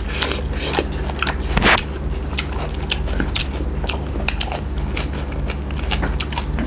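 Close-miked eating sounds: chewing on pork curry and rice, with many small wet mouth clicks and smacks and one louder, longer noisy sound about a second and a half in, over a steady low hum.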